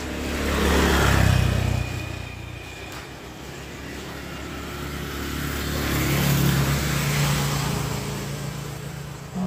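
Motor vehicles passing on a road: an engine sweeps by about a second in, its pitch falling as it goes. A second engine rises and fades away between about five and eight seconds in.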